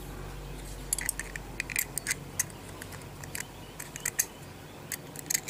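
Small diecast model van being taken apart by hand: a small screwdriver working in its screws, then the metal base and plastic body pulled apart, giving irregular light clicks and scrapes from about a second in.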